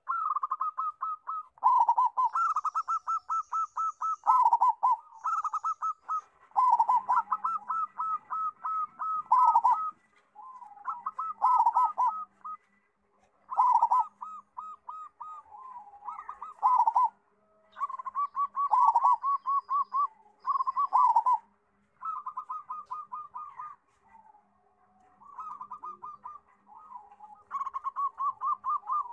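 Zebra dove (perkutut) cooing, phrase after phrase of quick pulsing notes, each phrase a second or two long with short breaks between.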